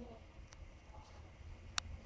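A faint low rumble, with a single sharp click near the end.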